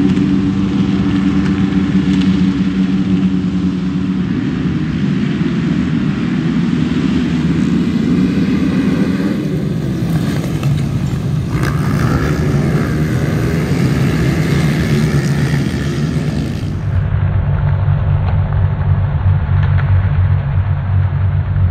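A field of racing quads' engines running loud at the start line, then the pack accelerating away off the start. About seventeen seconds in the sound cuts abruptly to a duller recording of the quads' engines revving at the line.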